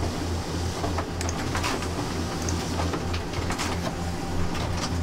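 A low mechanical hum that pulses evenly a few times a second, with light scattered clicks over it.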